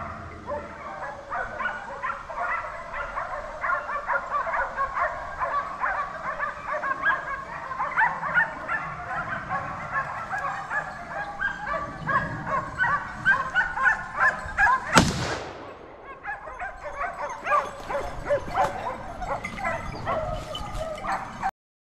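A pack of hunting hounds baying and yelping in a continuous chorus on a wild boar. About fifteen seconds in comes a single shotgun shot, the loudest sound, and the hounds keep baying after it.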